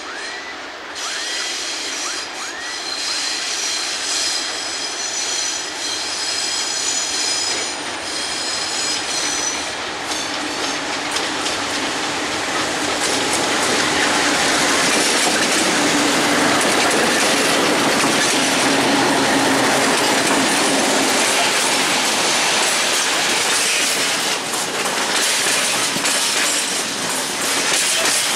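Freight train hauled by an MLW diesel locomotive approaching and passing close by. A high-pitched wheel squeal sounds through the first ten seconds, then the locomotive's diesel engine grows loud as it draws level about halfway through. Tank wagons follow, rolling past with their wheels clattering on the rail joints.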